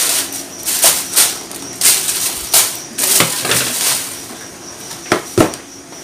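Plastic shoe-box wrapping being rustled and crinkled by hand in bursts, followed by two sharp knocks about five seconds in.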